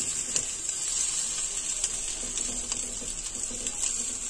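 Oil sizzling steadily under sardine-and-egg omelette patties frying crisp in a pan, with scattered small crackles.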